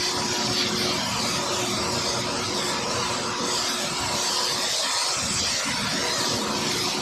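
Dust-extraction machine running steadily: a constant rush of air over a steady motor hum.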